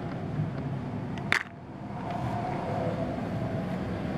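Steady low outdoor background rumble with one sharp click about a second in; the rumble briefly dips after the click, then returns.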